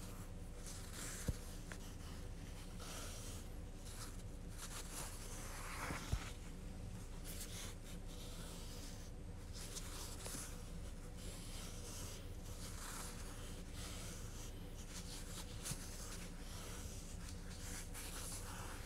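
Soft, intermittent rustling and rubbing as fingers turn and pick at a ball of yarn, over a steady low hum, with a couple of small clicks about a second and six seconds in.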